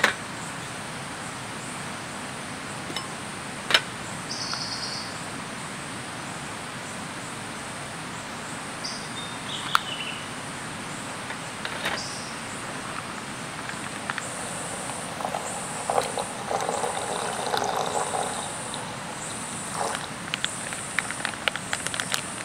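Forest ambience: insects chirp in a high, pulsing trill that sets in about two-thirds of the way through, with a few short bird chirps. A handful of sharp metal clinks come from a kettle being handled on a gas camping stove.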